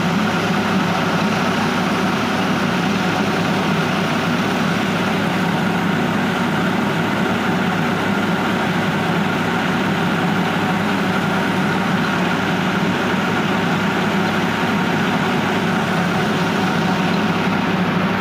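Tractor-driven mini rice mill running steadily while hulling paddy: an even, unchanging mechanical hum of the mill and the tractor engine powering it.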